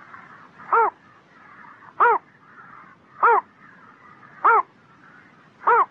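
A heron's short call repeated five times at an even pace, about one call every second and a quarter, each one rising and falling slightly in pitch.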